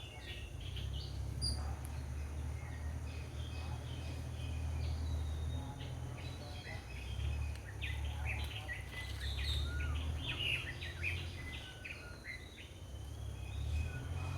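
Many short bird chirps and calls overlapping, most of them high, over a low steady rumble.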